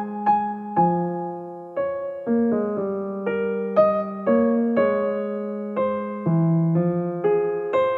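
Background music: a piano playing a gentle, even-paced tune, a new note or chord about every half second, each one fading before the next.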